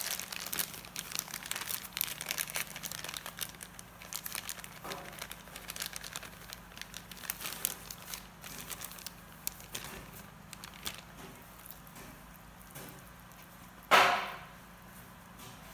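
Plastic bag of cornstarch crinkling and rustling with quick crackles as the starch is shaken out onto a plate. A single loud thump comes near the end.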